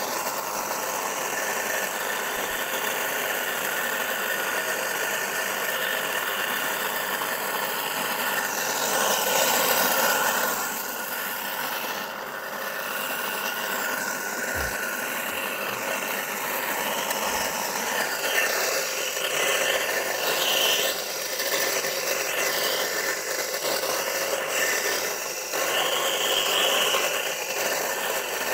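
Homemade walk-behind furrow cutter running steadily on its single-phase electric motor as its working part digs through dry soil. The sound swells briefly about a third of the way in, then eases.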